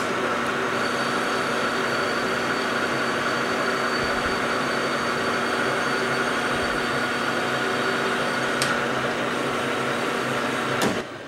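Emco V13 metal lathe running at steady speed with a steady hum and whine, taking a light finishing pass on a steel shaft. The spindle stops just before the end.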